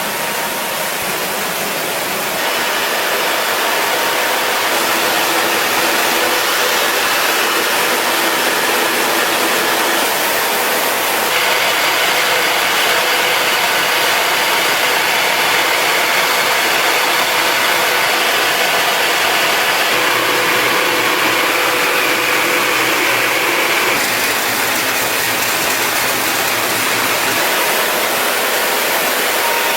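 Engine-driven farm machinery running steadily, a loud even mechanical noise whose character shifts about two seconds in, about eleven seconds in and again near 24 seconds in.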